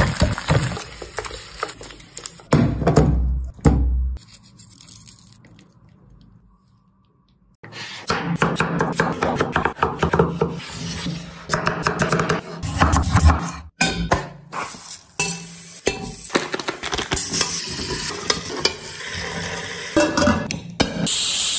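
Kitchen cooking sounds: fried chicken pieces stirred in a sizzling sauce in a pan, then a short quiet stretch. After that comes a long run of sharp knife strokes and knocks as tomatoes and potatoes are cut on a wooden chopping board.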